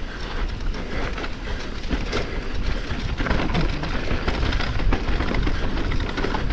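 Electric mountain bike rolling over a dirt forest trail: a continuous rumble of tyres and wind on the microphone, with frequent small rattles and knocks from the bike.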